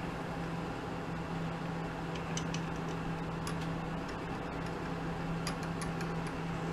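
Steady low machine hum with scattered faint metallic ticks, as a 2-56 tap is turned by hand into brass stock held in a mini lathe.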